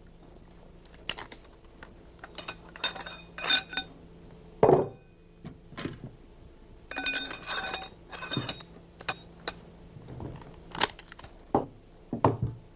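Metal clicks, clinks and knocks from a German MG 34 machine gun being worked through its quick barrel change by hand: parts latching and the steel barrel sliding and ringing against the receiver. There are two runs of ringing clinks, a heavier knock about five seconds in, and duller knocks near the end.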